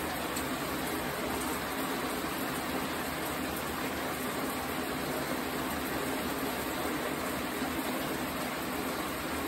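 Shower water running steadily, an even hiss of spray.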